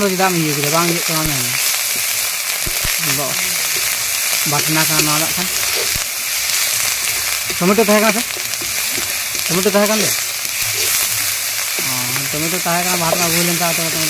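Food sizzling in hot oil in an iron karahi, stirred and scraped with a metal spatula, a steady frying hiss. A person's voice rises and falls at several points over it.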